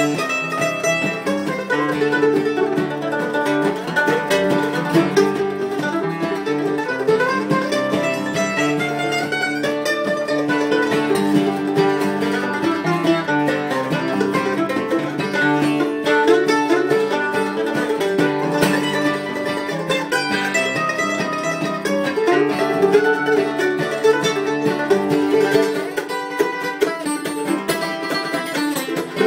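Acoustic guitar and mandolin playing an instrumental tune together, with quick plucked melody notes over steady strummed guitar chords.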